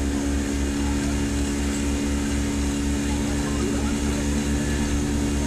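Passenger boat's engine running steadily at constant speed: a low, even throb with a steady hum.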